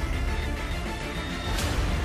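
Background music with a deep, steady bass and a percussive hit near the end.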